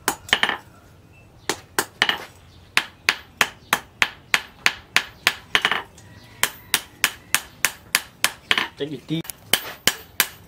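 Hand hammer striking a chisel blade on a steel anvil while it is forged hot, each blow a sharp metallic clang with a short ring. The blows come steadily at about three a second, with a brief pause about a second in.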